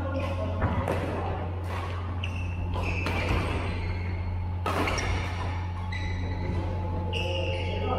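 Badminton doubles rally: sharp racket strikes on the shuttlecock roughly once a second, with short shoe squeaks on the synthetic court, over a steady low hum in a large hall.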